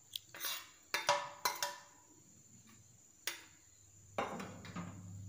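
Stainless steel dishes clinking and knocking: a quick run of clinks in the first two seconds while raw beef is mixed by hand in a steel bowl, then a couple more near the end as a steel plate is moved.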